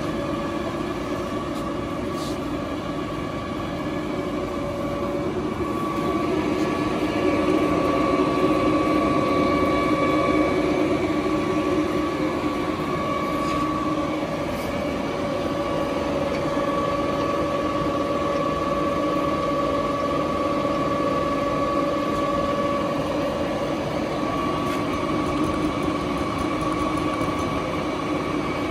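Summit 24x120 engine lathe with a 15 HP drive running under power: a steady hum and gear whine from the headstock and gearbox, a little louder from about six seconds in.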